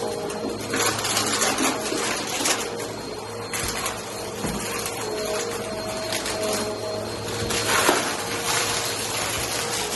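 Vacuum cleaner running on carpet, a steady motor hum under a rushing hiss that swells and eases as it is pushed back and forth.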